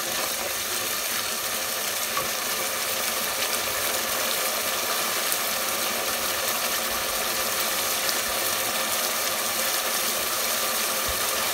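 Spice paste sizzling and bubbling in oil in a pot, a steady hiss with faint crackles, as it is fried down until the oil separates on top.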